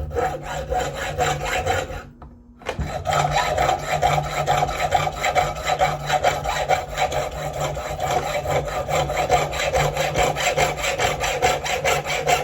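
Reciprocating saw cutting through a piece of scrap brass, a rapid rasping run of strokes over the motor's hum. It stops briefly about two seconds in, then starts again and keeps cutting.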